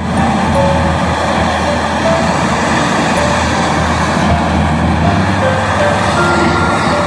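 Loud, steady mechanical roar with a deep rumble, like heavy machinery running close by. Faint held piano notes sound under it.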